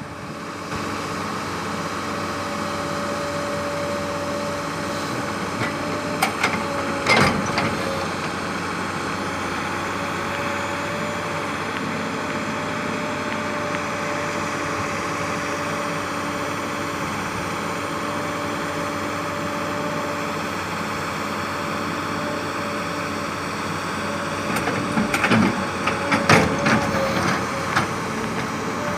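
Sumitomo S280 excavator's diesel engine running steadily under work, with a steady tone over the engine note. A few sharp knocks come about a quarter of the way in and again near the end.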